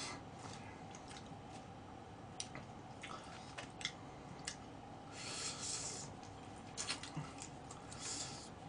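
Someone eating charcoal-grilled seasoned chicken with chopsticks: a few faint clicks now and then, and soft chewing noises, twice in short stretches.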